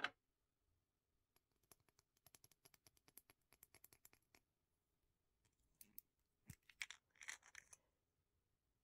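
Long fingernails tapping quickly and evenly on a small plastic toner bottle. Then the bottle is handled and its cap twisted and pulled off, with a knock and a short scratchy scrape. All faint.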